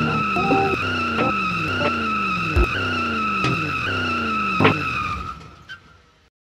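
Edited-in comic sound effect: a long, steady high screech like tyres skidding, laid over music with a falling slide that repeats about every two-thirds of a second. It all fades out from about five seconds in to silence.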